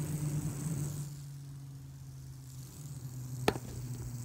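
Fidget spinner spinning fast after a blast of compressed air, giving a steady low whirring hum that drops slightly in pitch as it slows. A faint air hiss fades in the first second, and one sharp click comes near the end.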